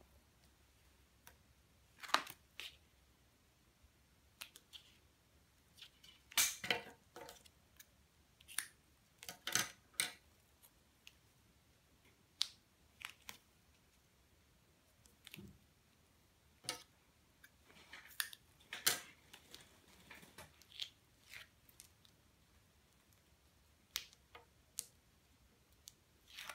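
Double-sided tape being pulled from its roll and pressed onto card stock, with paper rustling: intermittent short crackles and taps, the busiest a little over six seconds and nearly ten seconds in.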